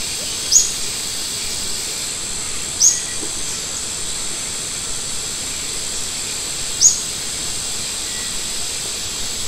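A short, high bird chirp sounds three times, a few seconds apart, over a steady high-pitched hiss.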